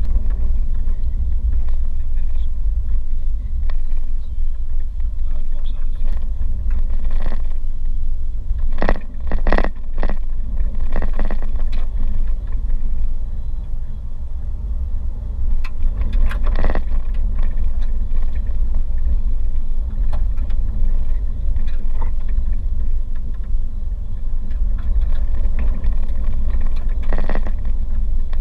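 A car driving slowly over a rough gravel and sand track, heard from inside the cabin: a steady low rumble of tyres and drivetrain. Over it come scattered knocks and rattles as the car jolts over bumps, with a cluster about a third of the way in.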